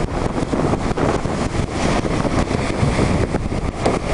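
Strong wind buffeting the microphone over the rush and spray of water along a racing sailboat's hull at high speed, a dense crackling noise with no letup.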